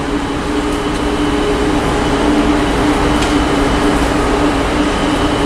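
Steady mechanical drone of a cruise ship's deck machinery, such as ventilation fans: a constant rushing noise with a deep rumble and two held humming tones.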